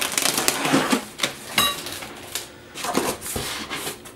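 Packing tape being torn off a cardboard box and the flaps pulled open: ripping, crackling tape and scraping cardboard in several bursts, with a short squeak about one and a half seconds in.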